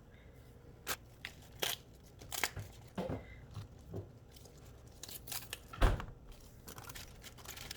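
Kitchen handling sounds while a sandwich is assembled: scattered short crackles, rustles and light taps, with one louder knock about six seconds in.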